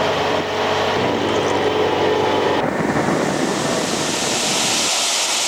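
Engine drone and rushing wind from riding in an open-sided songthaew pickup taxi. About halfway through the engine tones give way to rougher wind and road noise, and near the end this changes to the steady rush of a waterfall.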